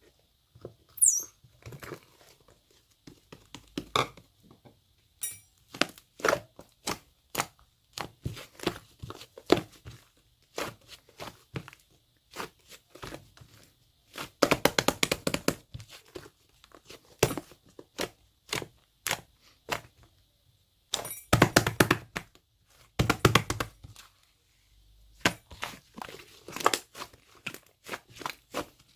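Hands squishing, stretching and pressing a soft white clay slime, giving irregular sticky pops and crackles. There are dense runs of quick pops about halfway through and again about three-quarters of the way in.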